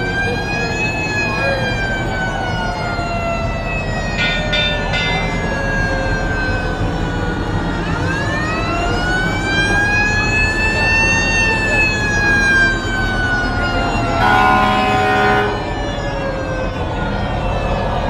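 Siren of the Red fire truck character vehicle wailing in two long, slow rises and falls over a low engine rumble. A few short tones sound about four seconds in, and a steady blaring tone lasting about a second and a half comes near the end.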